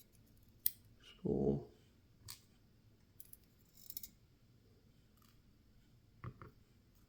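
A few small, sharp metallic clicks and taps, spread out: spool pins being picked out of a Yale lock's opened plug and set down.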